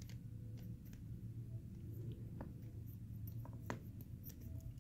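Faint, scattered small clicks of metal parts being handled as the aluminium extruder plate of an MK8 extruder is twisted off the hot end's threaded barrel, over a steady low hum. The sharpest click comes about three-quarters of the way in.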